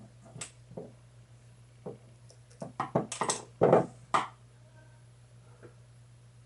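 Small clicks and taps of a screwdriver and tiny screws being worked out of a graphics card's I/O bracket, with a quick cluster of clicks and a louder rattle about three to four seconds in, over a steady low hum.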